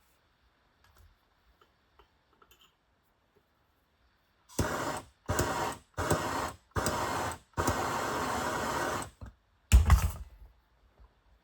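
Five bursts of steady hissing noise, each half a second to a second and a half long, starting about halfway through, then a short loud thump.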